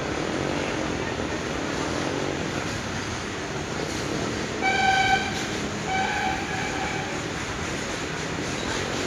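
WAG-9 electric locomotive's horn sounding twice over the steady noise of a passing goods train: a short, loud honk about halfway through, then a longer, weaker one a second later.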